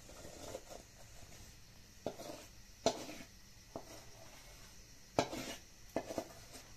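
Long metal spoon scraping thick syrup out of a steel bowl, with about five sharp clinks of spoon on metal and softer scraping between them.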